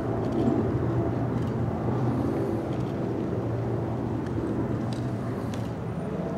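Steady low drone and rumble of outdoor background noise, with a few faint sharp clicks about five seconds in.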